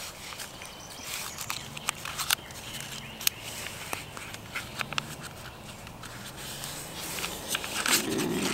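A sheet of printer paper rustling and crinkling as it is folded and creased by hand, with many small scattered clicks and scrapes. A brief louder low sound comes near the end.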